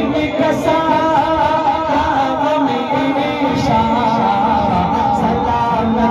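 Man singing a naat, an Urdu devotional song, into a microphone in long, ornamented, wavering melodic lines, over instrumental backing.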